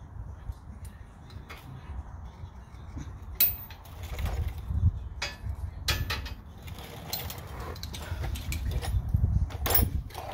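Tools and suspension parts being handled: several sharp clicks and knocks, the loudest about three and a half, five, six and nearly ten seconds in, over a steady low rumble.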